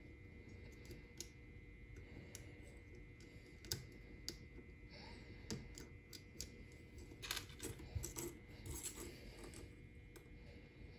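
Small, irregular plastic clicks and taps as fingers handle and fit tiny parts of an N scale model freight car's plastic underframe, with a quicker run of clicks about two-thirds of the way in, over a faint steady hum.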